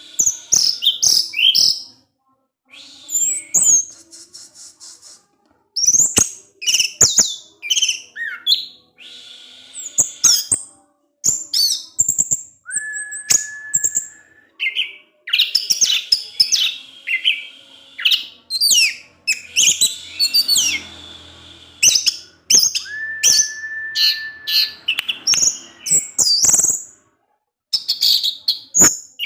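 Orange-headed thrush (anis merah) singing in the non-stop 'ngecip ngecis' style: quick runs of short, high chirps and twitters broken by brief pauses, with two long, level whistles, one near the middle and one later.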